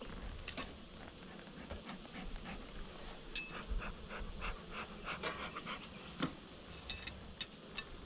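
Bee smoker's bellows squeezed again and again, puffing air out in a quick series of short breathy whooshes, about three a second. A few sharp clicks follow near the end.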